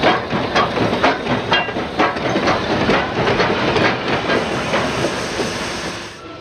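Dense clattering with irregular knocks, several a second, over a steady hiss. It eases off near the end.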